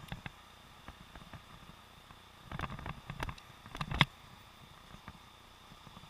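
Muffled knocks and rattles of a helmet-mounted camera sealed in a waterproof housing, jolted as the bicycle rides over the street. A cluster of knocks comes about two and a half seconds in and another about a second later, the loudest just after four seconds, over a faint steady high tone.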